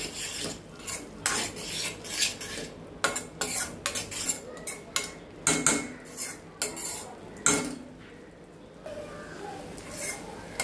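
A slotted stainless-steel spoon scraping and clinking against a stainless-steel kadai as a thick masala paste is stirred and sautéed. The strokes come irregularly, with a short pause about eight seconds in.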